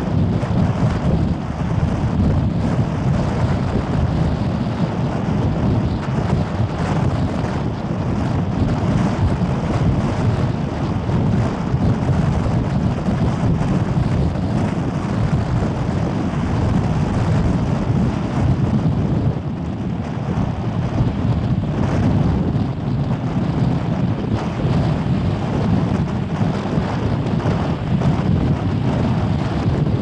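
Strong wind buffeting the microphone: a loud, unbroken rumble that flutters with the gusts.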